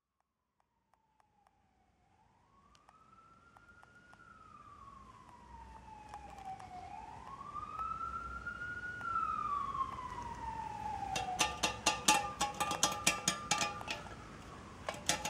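A siren-like wail fading in from silence, slowly rising and falling twice. About eleven seconds in, a fast, even clicking beat with steady tones comes in: the start of a music track.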